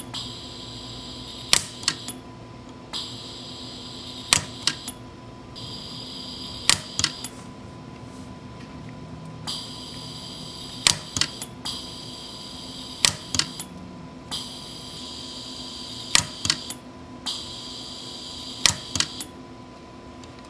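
Orion pulse arc micro welder firing single weld pulses, each a sharp snap, about every two to three seconds and sometimes two in quick succession, as gold filler wire is fused onto a high-palladium dental implant bar. A high hiss switches on and off in stretches around the pulses.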